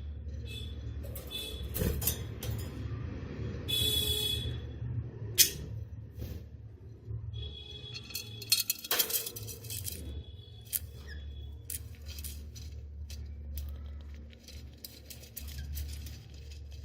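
Budgerigar chicks peeping in short high-pitched calls, with many small clicks and scratches in the nest and a steady low hum.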